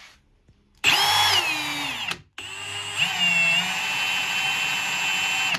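Milwaukee M18 Fuel 2804-20 hammer drill with a Röhm keyless chuck, spinning a long bit with no load. About a second in it spins up briefly and winds down. After a short pause it runs again, climbing to a steady high whine that cuts off near the end.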